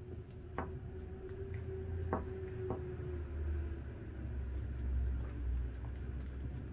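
A dachshund eating raw chicken: wet chewing and squishing, with three sharp crunches in the first three seconds.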